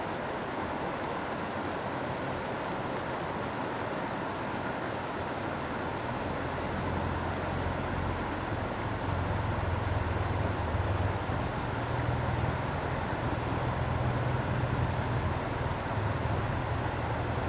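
Steady rushing of a flowing river, with a low rumble rising underneath about six seconds in and holding until near the end.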